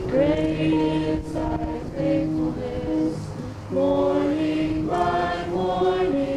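Slow choir-like singing, several voices holding long notes together and moving to new chords every second or so, with a low sustained note entering a little before halfway and again near the end.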